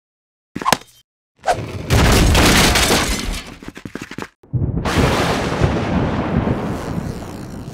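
Cartoon sound effects: a short blip, a rushing whoosh of about two seconds, then a rumbling, crackling electric zap of a lightning bolt striking that slowly fades.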